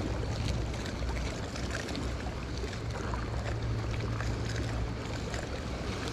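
Water lapping and moving below, over a low steady drone, with faint scattered ticks.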